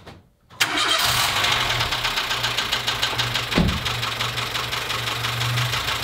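Dacia Sandero's 1.2 D4F petrol engine starting about half a second in and then running with a rapid, regular knocking, which the owner suspects may be a spun bearing from running low on oil.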